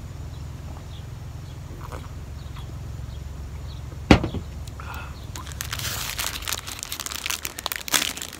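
Plastic ice-lolly wrapper crinkling as it is handled, starting a little past halfway. Before it there is a low steady rumble and one sharp knock about four seconds in.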